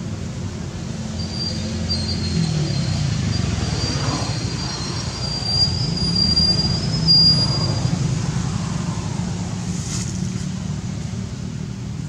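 A motor vehicle running by, its low engine hum shifting in pitch, with a high thin squeal over it for several seconds. It grows louder toward the middle, then fades.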